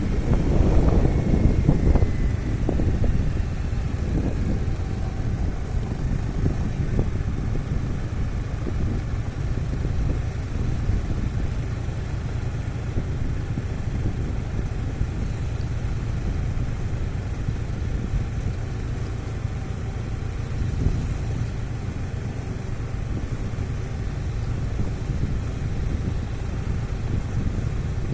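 A vehicle engine running steadily with a low rumble, with scattered knocks and rattles in the first few seconds.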